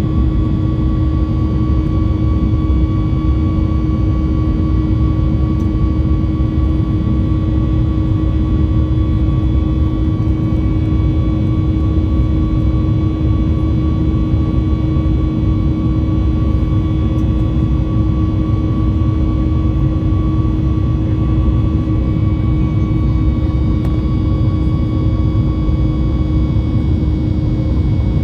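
Cabin noise inside a Boeing 737 MAX 8: the engines and the airflow make a steady deep rumble, with several steady whining engine tones on top, one of which fades out near the end.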